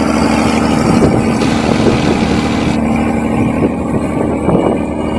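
Rába 245 tractor's six-cylinder diesel engine running steadily under load while pulling a cultivator through the soil.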